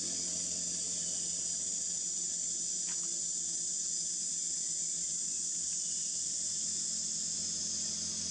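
Insects droning steadily in a high-pitched, unbroken hiss, with a faint low hum underneath.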